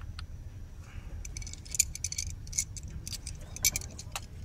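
Metal quick-release plate for a camera gimbal being handled and fitted to the underside of a mirrorless camera. It makes a quick string of sharp little clicks and rattles, starting about a second in.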